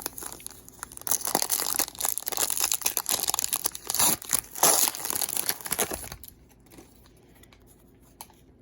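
Baseball card pack wrapper being torn open and crinkled, a dense crackling rustle that lasts about five seconds and then stops.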